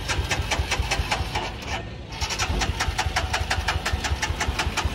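Royal Enfield Himalayan's single-cylinder engine being cranked on the electric starter in two tries, a rapid even pulsing with a short break about two seconds in. The engine does not catch: a no-start that the riders put down to an engine problem.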